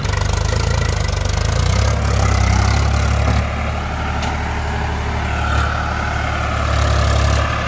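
Diesel tractor engine labouring under heavy load as it drags a loaded brick trolley up a muddy slope. It runs loudest for the first few seconds, eases about three and a half seconds in, and picks up again near the end.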